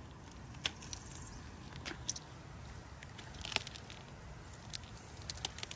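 A large tortoise biting and chewing a cactus pad: faint, scattered crisp crunches and snaps at irregular intervals as it tears off and works the tough pulp.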